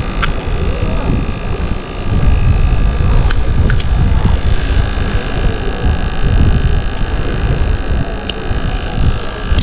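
Wind buffeting the microphone, a loud gusty low rumble, over a steady faint hum, with a few light clicks.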